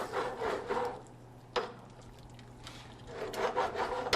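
A spoon stirring curry in a pan, scraping along the pan, with a single knock about one and a half seconds in. The stirring goes quieter in the middle and picks up again near the end.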